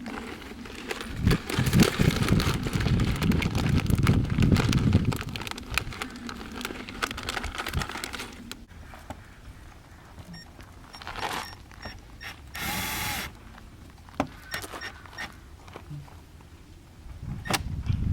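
Several seconds of loud clattering and rustling as parts of the underglow kit are handled, then quieter scattered clicks, with a short power-drill whir about thirteen seconds in.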